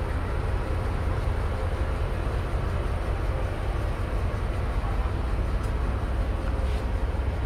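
Ferry boat's engine running steadily under way, a constant low rumble.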